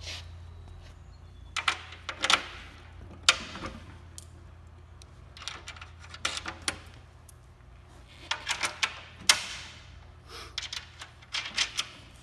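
Metal hardware clicking and clanking in irregular clusters: carriage bolts, nuts and the steel leaf plow bracket being handled and fitted while bolting it onto a mower hitch. A steady low hum sits underneath.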